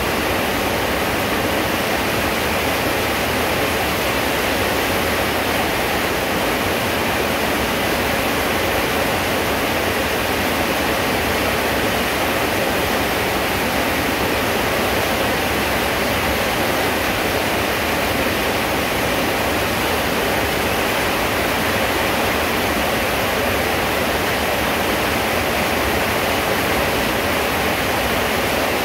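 Loud, steady rain falling, an even unbroken hiss.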